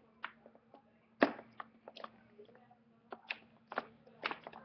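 Plastic wrestling action figures being handled on a hardwood floor: irregular clicks and knocks as they tap and bump the boards, the loudest about a second in and several more close together near the end.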